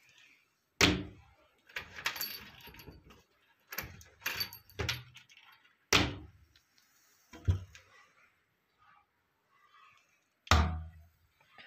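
Wooden wardrobe doors being swung and banged shut several times, each closing a sharp thud, the loudest about a second in, six seconds in and near the end. Keys in the door lock jangle between the bangs.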